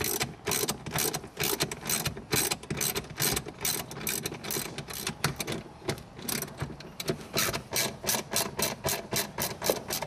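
Hand socket ratchet on a long extension, clicking in a steady run of strokes as it backs out 8 mm bolts; the clicks come faster near the end.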